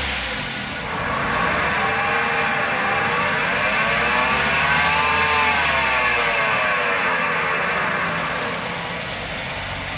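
Car on the move with a droning hum that rises in pitch as it gathers speed, peaks about halfway, then falls as it slows: a bad wheel bearing.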